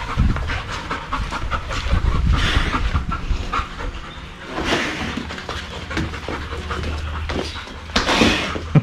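Dogs panting heavily, with a few louder breathy blasts about two and a half, four and a half and eight seconds in.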